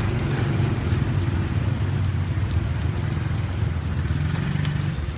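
Street traffic: motorbike and car engines passing close by, a steady low rumble that swells and eases a little, under a light hiss.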